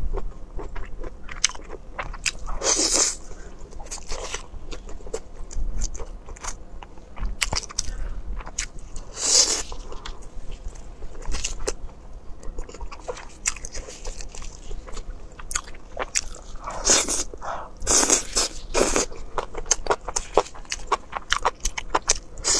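Close-miked eating of spice-coated grilled skewers: steady chewing and biting made up of many short mouth clicks, with a few louder bites scattered through.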